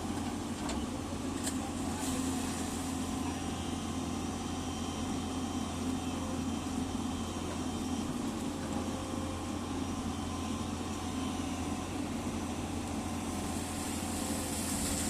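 Excavator diesel engine running steadily, a continuous low drone, with a higher hiss growing near the end.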